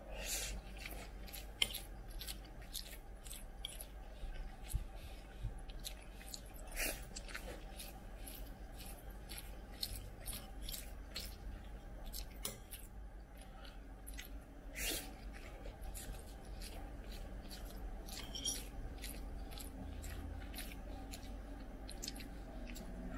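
Close-miked eating of mutton rice: a metal spoon scraping and scooping rice on a ceramic plate, along with chewing. It comes through as an irregular run of small clicks and scrapes, with a couple of louder scrapes.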